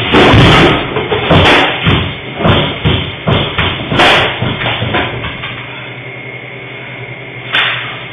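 Loud, irregular banging and knocking from a trapped man pounding and shoving at a locked door, dense for about five seconds, then one more bang near the end.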